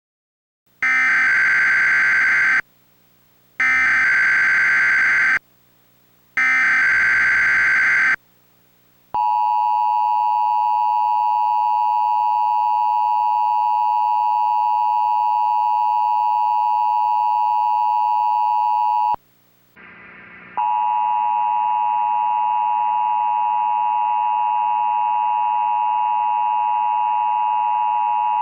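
Emergency Alert System tones. Three short bursts of screechy data-header tones, then the long steady two-tone attention signal for about ten seconds. After a brief break, another steady tone starts and holds.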